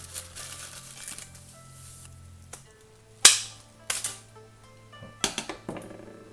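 A bundle of dried bamboo leaves rustling and crackling as it is handled, then several sharp snaps from about halfway through as scissors cut the bundle's tie.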